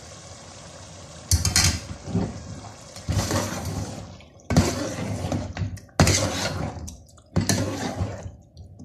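Metal spoon stirring chicken curry in an aluminium pot, scraping and knocking against the pot in five sharp strokes that each fade away, after about a second of steady hiss.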